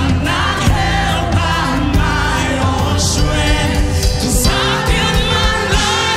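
Live gospel worship song: a woman singing lead with other voices, over a band of electric bass, keyboards and drums.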